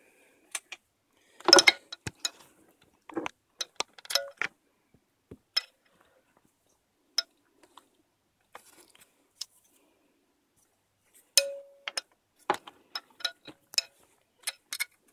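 Scattered light clicks and clinks of small hard objects being handled, irregular and separated by near silence, with a louder clack about a second and a half in and a few more near the end.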